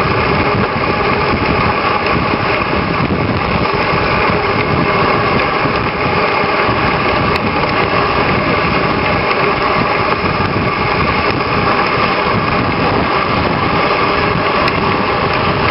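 Steady, loud rushing noise of a ride over packed snow behind a running team of Alaskan Malamutes, with no change in level.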